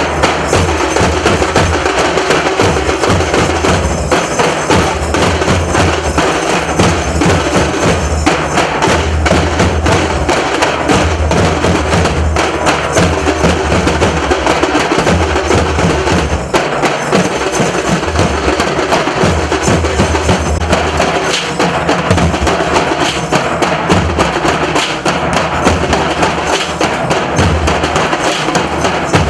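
Nasik dhol drumming played loud and without a break: heavy low drum beats with sharp high strokes over them. It dips briefly a little past the middle.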